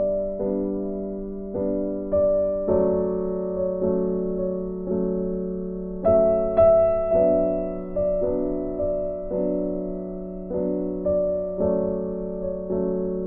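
Background music: a gentle piano tune, notes struck about once or twice a second and left to fade.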